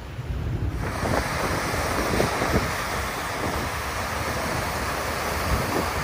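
A large flow of water rushes down a hydroelectric power station's bypass channel in a waterfall-like cascade of white water, diverted there because of a machinery failure at the plant. The rush is steady, and grows fuller and brighter about a second in. Wind buffets the microphone underneath.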